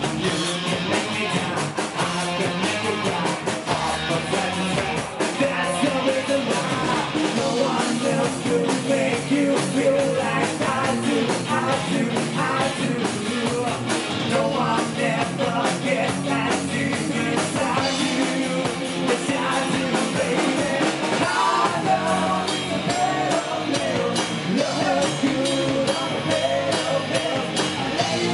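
Hard rock band playing live: distorted electric guitars, bass and drums with a male singer singing over them.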